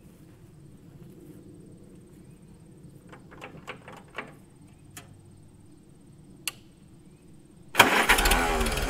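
A few light clicks and knocks, then about eight seconds in the 1942 Farmall H's four-cylinder gasoline engine fires up suddenly and keeps running loudly.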